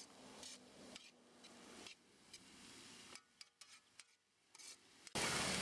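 A metal spoon scraping and stirring chopped ridge gourd in a kadai: faint, irregular scrapes and rubs. About five seconds in, a steady loud noise cuts in suddenly.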